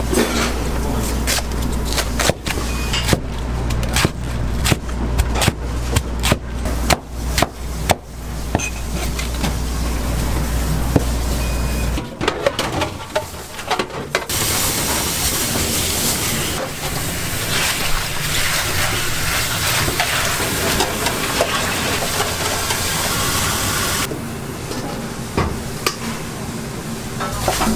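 A cleaver chops cabbage on a plastic cutting board in rapid, uneven knocks for the first several seconds, over a steady low hum that stops about twelve seconds in. Roughly halfway through, tap water runs hard into a stainless steel sink for about ten seconds while the cut cabbage is washed, and a few clinks of a metal bowl follow near the end.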